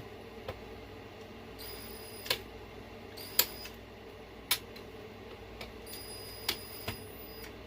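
A handful of scattered sharp clicks and taps from tools and parts being handled while working on an RC truck, with three brief faint high-pitched whines in between.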